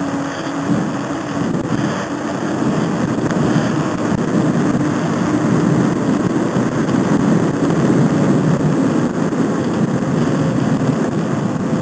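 Steady rushing noise of a bicycle rolling along a paved trail: wind buffeting the camera's microphone mixed with tyre rumble on the asphalt, with a faint steady hum underneath.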